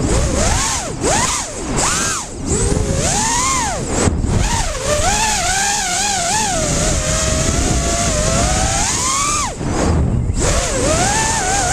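QAV210 racing quadcopter's brushless motors and props whining, the pitch swooping up and down as the throttle is punched and cut, over a low wind rumble. The whine drops away briefly twice, about four seconds in and again near ten seconds, as the throttle is chopped.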